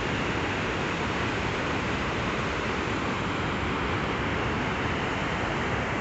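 Water pouring steadily over the stepped concrete weirs of a dam spillway: an even, unbroken rush of falling water.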